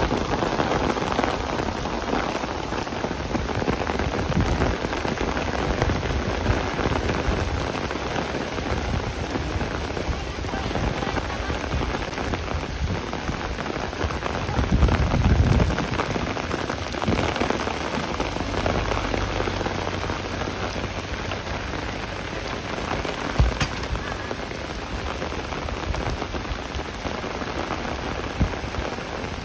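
Rain falling on a wet paved path and grass, a steady hiss. A louder low rumble comes about halfway through, and there is a single short click later on.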